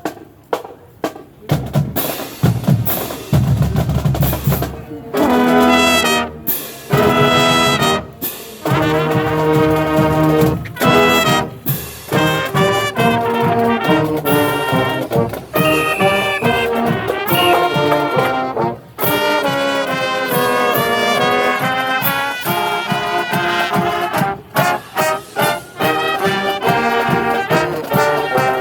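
Marching band playing: drum hits for the first few seconds, then the brass section comes in with loud held chords over the percussion, with short breaks between phrases.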